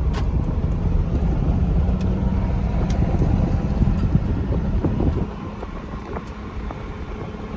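Ford Bronco's engine running with a steady low rumble, heard from inside the cabin, with a few light clicks. The rumble eases off noticeably about five seconds in.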